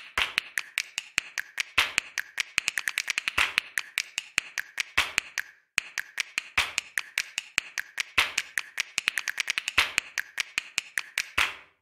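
Fast, irregular sharp clicks and taps, some with a short ring, running in quick flurries with a brief break near the middle: a percussive soundtrack intro.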